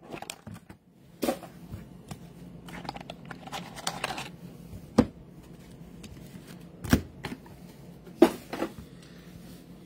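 Hands handling a cardboard trading-card box, the cards and rigid plastic card holders: soft rustling and scraping, with several sharp clicks and taps.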